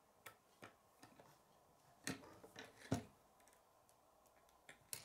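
K'nex plastic rods and connectors clicking as they are handled and snapped together: a handful of faint, separate clicks, the loudest about three seconds in.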